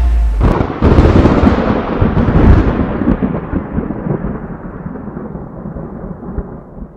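Thunder sound effect: a sudden loud crack about a second in, then a long rumble that slowly fades away.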